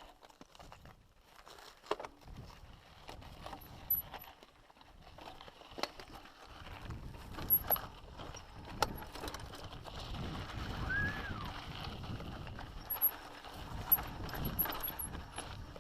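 Mountain bike rattling and clicking, with footsteps, as it is moved down a rocky trail, and a low rumble in the second half. Faint high chirps sound now and then.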